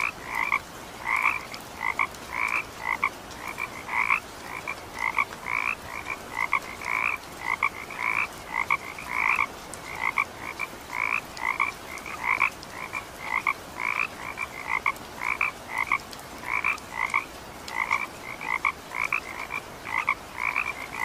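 Frogs calling in a steady chorus of short, repeated croaks, about two a second.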